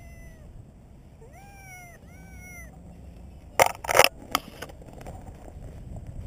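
Domestic cat meowing: the tail of one meow at the start, then two clear meows about a second in. About three and a half seconds in comes a quick cluster of loud, noisy scuffs, the loudest sound here, as the cat is handled into the bag.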